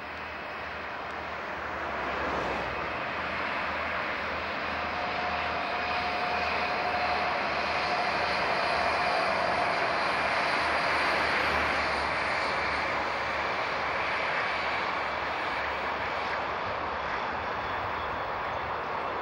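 A pair of DSB diesel locomotives running under power as they haul a train past. The engine noise builds over the first couple of seconds, is loudest in the middle and eases slightly toward the end.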